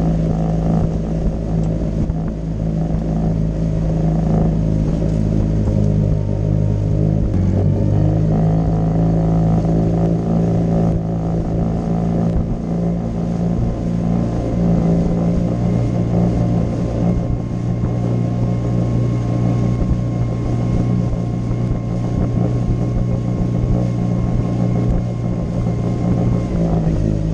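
Suzuki DF20A four-stroke outboard motor running steadily, driving a small aluminium boat along, with water rushing past the hull. The engine note shifts slightly about seven seconds in.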